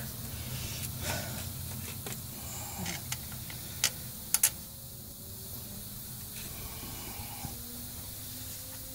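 A few sharp metallic clinks as the front driveshaft's flange is turned and fitted against the differential pinion flange, a single one then a close pair about four seconds in, over a steady background hiss.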